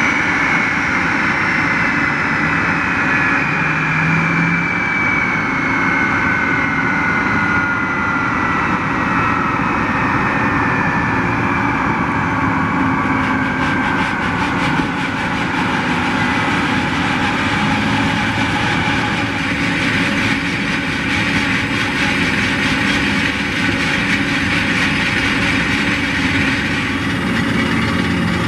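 Boeing 767-200's jet engines spooling down after the aircraft stops at the gate: a whine falls slowly in pitch over about the first twelve seconds, above a steady loud rumble and hiss of the idling jet.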